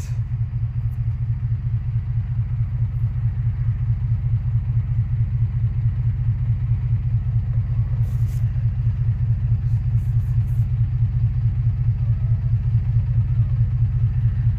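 2003 Infiniti G35's 3.5-litre V6 idling with a steady, even low pulsing; the scan tool is reporting a misfire, and the idle seems kind of rough.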